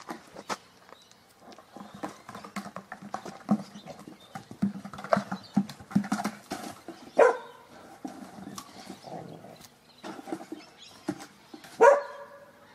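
Dogs playing, with two loud short barks, one about seven seconds in and one near the end, amid scattered knocks and scuffles.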